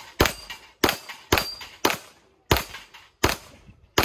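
A rapid string of seven gunshots, spaced about half a second to three quarters of a second apart, fired at steel targets. Each shot carries a short metallic ring from hit steel.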